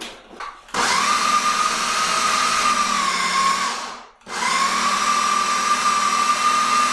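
Ninja blender motor running in two bursts with a short stop between them, its plastic blade creaming cream cheese and sugar. A steady whine that sags slightly before the first burst stops and rises again as the second starts.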